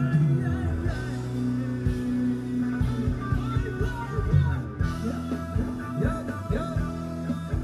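Thai ramwong dance music from a band: held keyboard-like tones and a wavering melody over regular drum beats.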